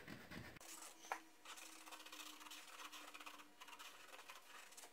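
Faint, uneven scrubbing of a gray Scotch-Brite pad with scuffing gel and water rubbing across a car's painted body panel, scuffing the paint to prepare it for new paint.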